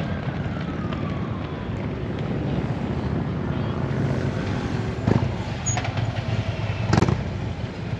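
Motorcycle engines running in a steady low rumble, with a tone gliding down over the first couple of seconds. Two sharp bangs come about five and seven seconds in.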